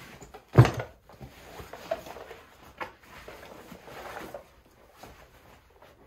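Heavy camouflage rucksack being handled and hoisted onto a person's back: one loud thump about half a second in, then rustling of the pack's fabric and straps with a sharp click a little before three seconds, dying away near the end.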